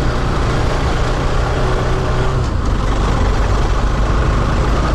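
Motorcycle engine running steadily under a dense, even noise, with no distinct knocks or changes.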